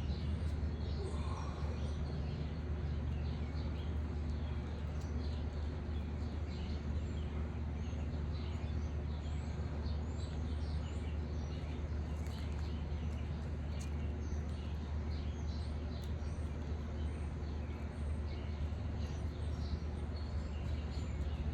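Small birds chirping on and off over a steady low rumble.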